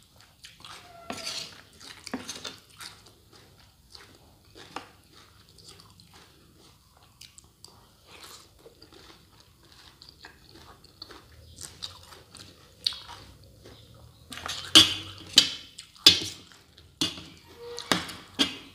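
Close-up crunching and chewing of shredded sour-mango salad: soft crisp bites at first, then a run of louder crunches in the last few seconds.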